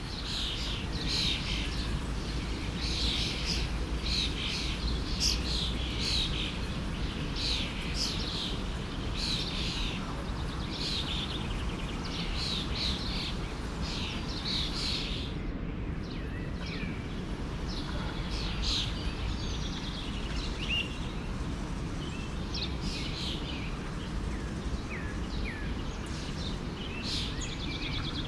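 Many small birds chirping in short, quick calls over the steady rush of a forest stream; the chirping thins out about halfway through.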